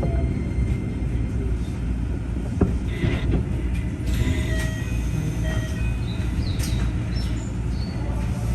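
Keikyu train car DeHa 1479 running, heard from on board: a steady, heavy motor and running rumble with short scattered whines, mostly in the second half, and one sharp click a few seconds in. The car's Toyo IGBT inverter drives traction motors swapped in from Mitsubishi-equipped sets, which give it its rough, abnormal motor noise.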